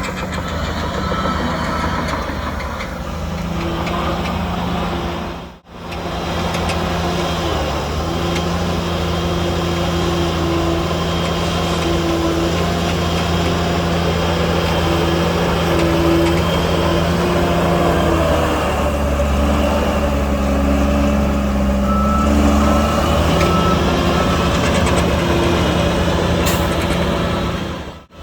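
Heavy diesel earthmoving machinery running under load, its engine note shifting in pitch and strength partway through, with a reversing beeper sounding intermittently. The sound cuts out for a moment about five seconds in.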